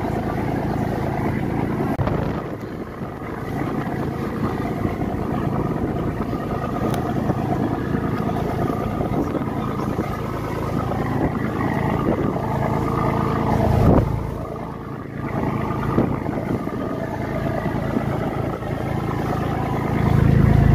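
Wooden tour boat's engine running steadily under way, a constant drone that swells briefly about two-thirds of the way through and grows louder near the end.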